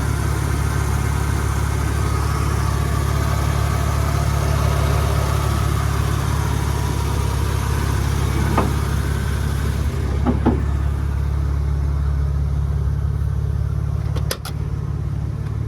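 1995 Ford F-150's 4.9-litre inline-six engine idling steadily. A higher hiss drops away about two-thirds of the way through, and a couple of sharp knocks come near the end.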